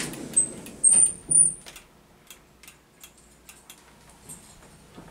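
Elevator cab's stainless steel sliding doors moving. Three short, very high-pitched sounds come in the first second and a half, followed by scattered light clicks.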